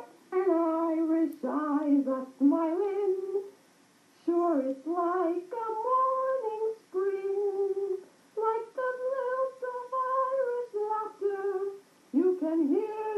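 A woman singing a tune without clear words, holding steady notes in short phrases with brief pauses between them.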